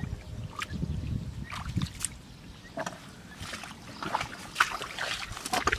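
Shallow muddy water splashing and sloshing as feet and a hand move through it, in irregular bursts over a low rumble.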